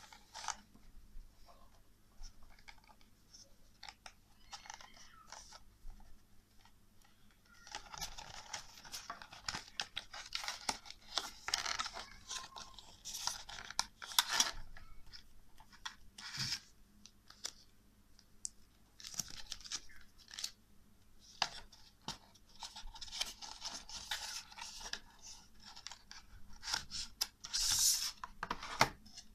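A phone case's cardboard and clear-plastic retail box being handled and opened by hand: irregular rustling, scraping and crinkling with many small clicks. It is faint for the first several seconds, then busier.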